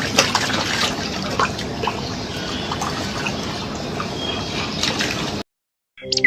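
Water trickling and splashing, with scattered small drips, cutting off suddenly about five seconds in.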